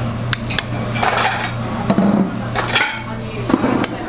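Metal kitchen utensils clinking and scraping against pans and dishes, several separate knocks and clinks, over a steady low hum.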